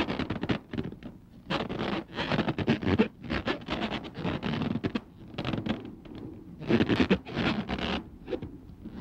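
Scraping and rustling of dry brush and stony ground underfoot, coming in uneven bursts with short pauses.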